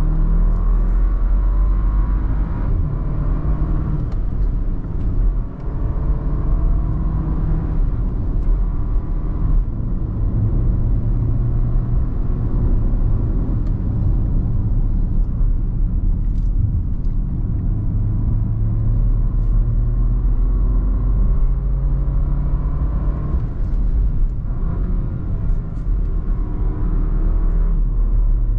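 Porsche Macan 2.0's turbocharged four-cylinder engine pulling on the move, heard from inside the cabin. Its note rises and falls repeatedly over a steady rumble of road and tyres.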